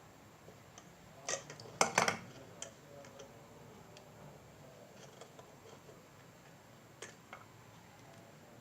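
Small sharp clicks and taps from tools and parts being handled on a workbench while wiring a circuit board. A quick cluster of clicks comes about a second and a half in, and two more near the end.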